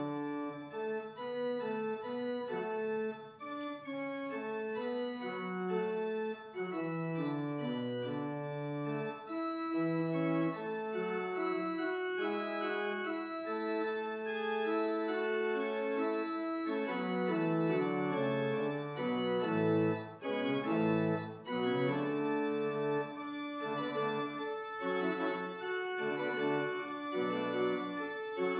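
Church organ playing a postlude: sustained chords in several voices over a moving bass line.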